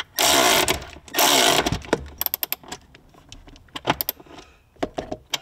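Milwaukee M12 cordless ratchet with a Torx 40 bit running in two short bursts, about a second apart, as it drives bolts tight. Then come a string of light metallic clicks and rattles from the tool and bit.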